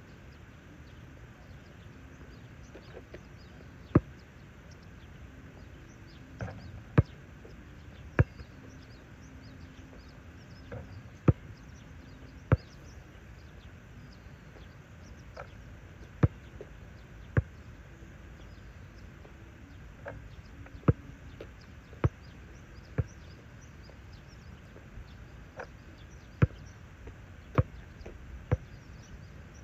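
A basketball bouncing on an outdoor asphalt court: about a dozen sharp single thuds at irregular intervals, often in runs of two or three about a second apart.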